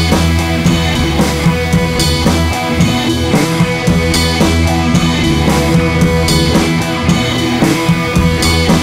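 Background music with drums and guitar and a steady beat.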